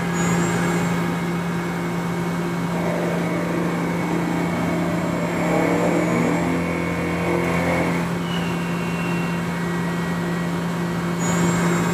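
Mazak Integrex i-150 mill-turn machine turning a shaft with a lathe tool, cutting dry without coolant. A steady low hum runs under the noise of the cut, with faint shifting tones in the middle.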